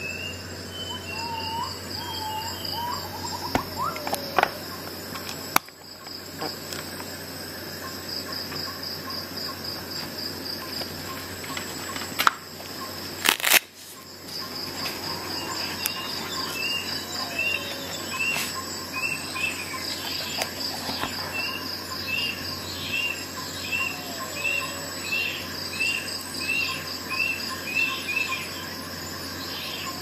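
Birds singing over a steady insect trill, one bird repeating a short chirp about one and a half times a second through the second half, with a few lower whistles. Several sharp clicks and knocks from handling a multi-tool and its pouch, the loudest about twelve to fourteen seconds in.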